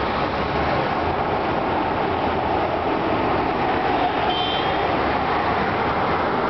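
Road traffic: cars passing on a wide multi-lane street, a steady rush of tyre and engine noise. A brief faint high-pitched tone sounds about four seconds in.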